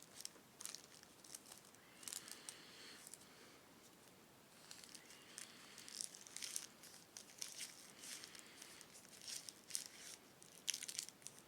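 Faint rustling with scattered small crackles and clicks, irregular throughout.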